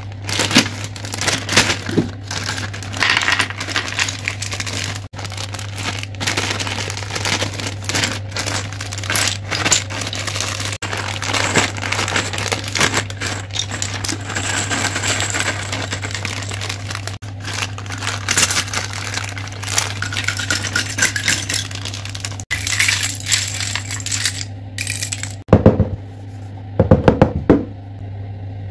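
Plastic zip bags crinkling while small wooden puzzle pieces and rings clatter and rattle onto a table top, over a steady low hum. A few heavier thumps come near the end.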